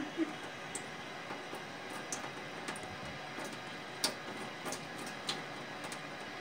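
A thin stream from a kitchen faucet running steadily into a stainless-steel sink, with scattered light clicks and splashes as a cat licks at the stream.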